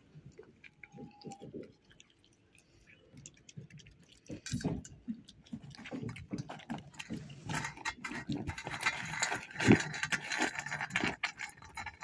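A raccoon eating treats from a stainless steel bowl of nuts and dates: chewing and rummaging, with many small clicks of food against the metal. It starts about four seconds in and gets busier and louder in the second half.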